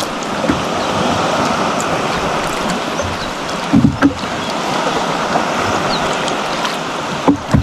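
Steady rush of sea water and small waves around a small boat, with a couple of brief knocks about four seconds in and another just before the end.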